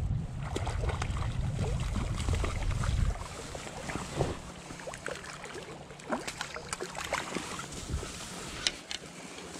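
Wind buffeting the microphone for about the first three seconds, then river water splashing and gurgling close by, with many small sharp splashes.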